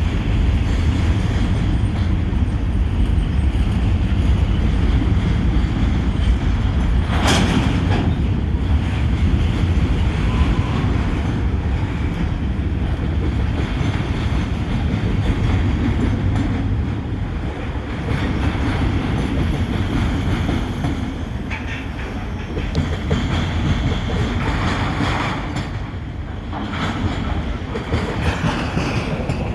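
Canadian Pacific freight train's cars rolling through a rail yard: a steady rumble of steel wheels on the rails, with one sharp clank about seven seconds in. The rumble eases a little near the end.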